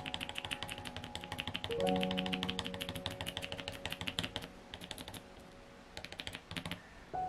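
Metal palette knife tapping and dabbing quickly into thick acrylic paint on a canvas, a fast run of soft clicks that stops about four and a half seconds in, with a few more near the end. Soft background music with held notes plays underneath.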